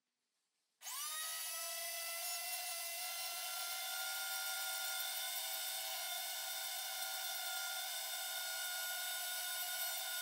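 Flexible-shaft rotary tool with a small abrasive disc starting about a second in, spinning up quickly and running with a steady high-pitched whine. It is cleaning the paint off the raised numerals of the cast dial.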